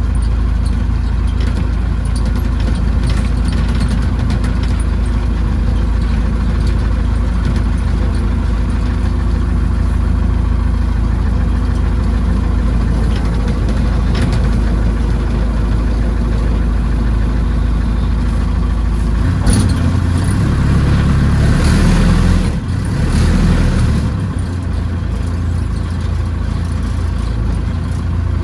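Massey Ferguson BX 50 backhoe's diesel engine running steadily. About two-thirds of the way through, its note shifts and rises for a few seconds, as if under load or throttle.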